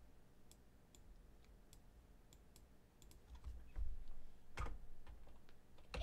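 Faint clicks of a computer mouse and keyboard keys: a string of small, sharp clicks, with a louder click and a low thump about four and a half seconds in.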